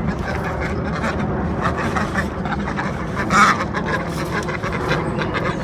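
Ducks quacking, with the loudest call about three and a half seconds in, over a steady low rumble.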